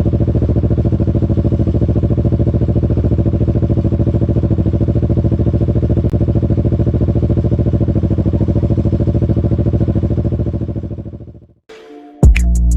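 Kawasaki Ninja 650's parallel-twin engine idling steadily at an even pitch through a Two Brothers aftermarket exhaust muffler, fading out about eleven seconds in. Music with drum hits begins near the end.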